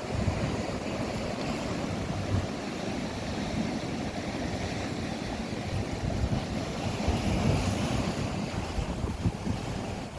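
Ocean waves washing, with wind buffeting the microphone in gusts.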